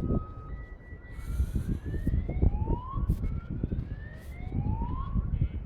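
A siren wailing, its pitch rising over about a second and starting again about every two seconds, over a steady low rumble.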